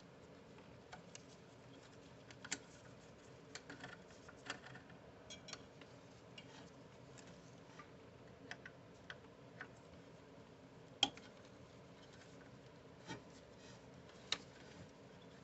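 Faint, irregular clicks and ticks of a small driver and metal parts being handled while the cable chain's 3 mm screws are backed out. The sharpest click comes about two-thirds of the way through.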